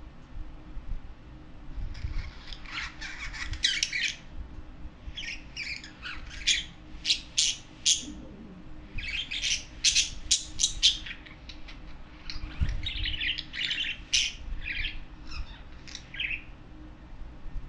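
Pet budgerigars chattering in quick runs of short, high chirps. The chattering starts about two seconds in and comes in several runs with short pauses between them.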